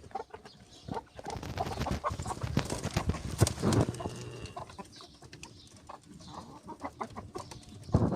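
Chickens clucking in short, irregular calls mixed with small clicks, loudest about three and a half seconds in.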